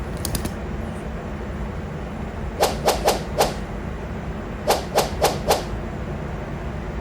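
Two quick runs of four short, sharp taps or knocks, a couple of seconds apart, over a steady low hum.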